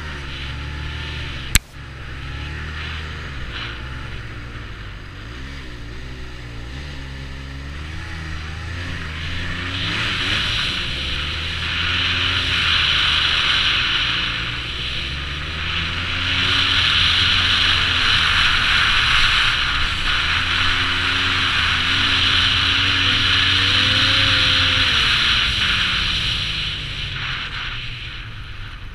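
Arctic Cat Z1 Turbo snowmobile's 1,056 cc turbocharged four-stroke engine running under way, its pitch rising and falling with the throttle, with one sharp knock about a second and a half in. A loud rushing hiss builds as the sled picks up speed through the middle, then dies away near the end as it slows.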